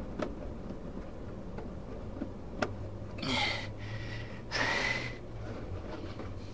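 A person breathing out heavily twice, a little over a second apart, each breath with a faint whistling edge, while wires are handled with a few light clicks before the breaths.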